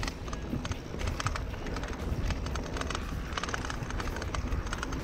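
Mountain bike riding down dry dirt singletrack: the tyres crunch over the ground and the bike rattles with many small irregular knocks, over a low rumble of wind and vibration at the handlebar-mounted camera.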